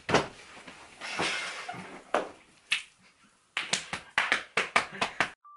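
Stifled, breathy laughter in a fast run of short gasps, about five a second, after a few scattered sharp taps and rustles; it cuts off suddenly near the end.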